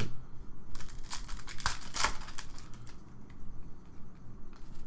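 Crinkling and crackling of trading-card pack wrappers and cards being handled, with a run of sharp crackles between about one and two seconds in, then quieter rustles.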